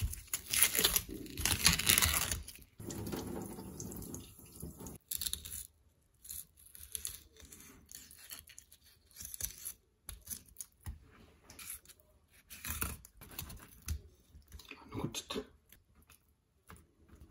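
Hands working a skinned filefish on a wooden cutting board: rough tearing and rubbing for the first few seconds, then a fish knife sliding and tapping softly on the board, on and off, as the fish is filleted.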